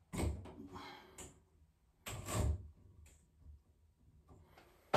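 A handheld shower head being handled in its wall holder: a scraping slide in the first second, a sharper clack about two seconds in, and another knock at the very end.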